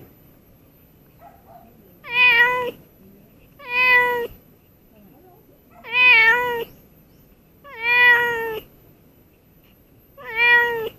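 Domestic cat meowing five times, roughly every two seconds, very close to the microphone.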